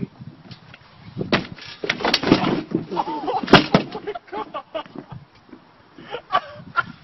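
A playground seesaw knocking and banging as a rider falls off, with shouts and yelps from the people on it. There is a cluster of sharp thumps between about one and four seconds in, the loudest near the end of it.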